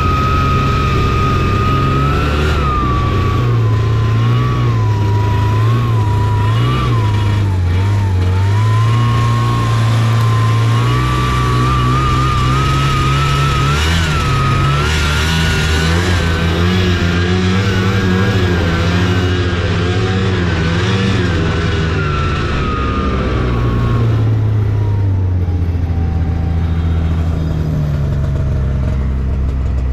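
Taiga Varyag 550 snowmobile's two-stroke engine running while riding, its pitch rising and falling with the throttle. A high whine follows the engine speed, and in the last several seconds both fall in pitch as the machine slows.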